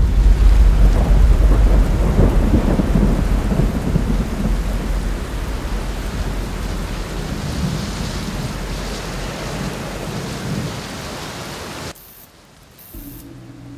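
Thunderstorm: heavy rain with a long deep rumble of thunder, loudest at the start and slowly dying away. About twelve seconds in the storm cuts off, and a quiet low steady hum comes in near the end.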